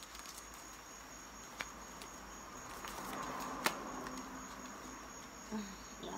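Knit fabric garment rustling as it is unfolded and shaken out, the rustle swelling around the middle, with two sharp clicks, the second louder. A faint steady high whine runs underneath.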